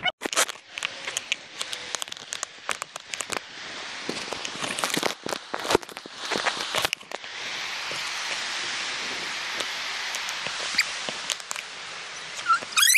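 Camera microphone being handled and rubbed: irregular crackling clicks and rustling, then a steady rushing hiss from about seven seconds in.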